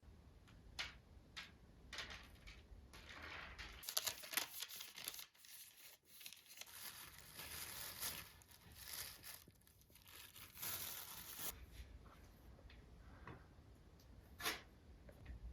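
Crinkling and tearing noises, as of something being torn and handled by hand, thickest in the middle and scattered with small clicks.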